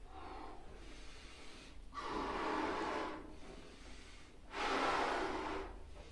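A man blowing up an orange party balloon by mouth: two long, loud blows of rushing breath, each about a second, with a fainter breath at the start.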